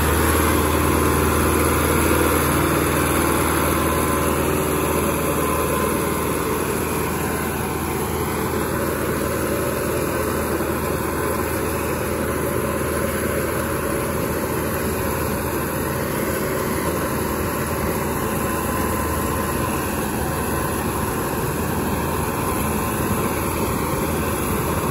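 Massey Ferguson 385 tractor's diesel engine running steadily under load while driving a super seeder in the field. The sound eases a little over the first few seconds, then holds even.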